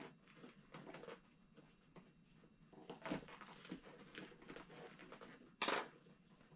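Faint rustling and small clicks of hands working a plastic zip tie and hook tool through a seat cover's mesh, with one louder short sound near the end.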